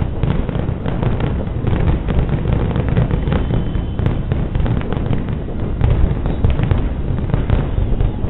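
Aerial firework shells bursting in a dense, continuous barrage: many bangs and crackles run together over a low rumble.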